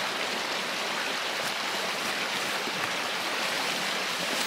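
Steady rushing water noise, an even hiss with no clear breaks.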